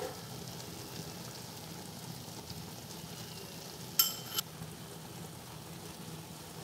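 Faint, steady sizzle of rice cooking in a pot on the stove, the water boiled off. A single ringing clink sounds about four seconds in, followed by a smaller knock.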